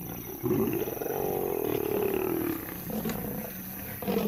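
Lions snarling and growling in a fight between lionesses and a male lion. One drawn-out snarl starts about half a second in, lasts about two seconds and slides slightly down in pitch, followed by quieter growls.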